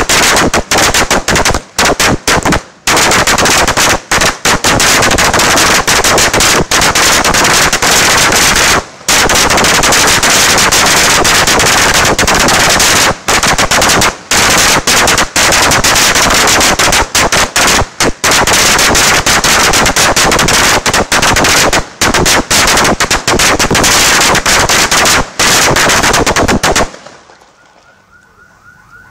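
A long string of firecrackers going off in a loud, rapid, continuous crackle of bangs with a few brief gaps, stopping suddenly near the end.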